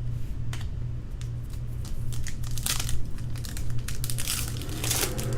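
Foil trading-card pack wrappers crinkling and tearing as packs are handled and opened, with irregular rustles and clicks over a steady low hum.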